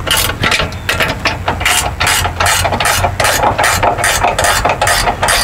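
Ratchet wrench clicking in quick repeated strokes as a bolt on a fifth-wheel camper's landing-gear leg is backed out.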